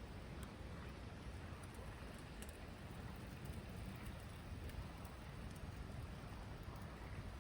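Steady outdoor background noise: a low rumble with an even hiss over it and a few faint ticks.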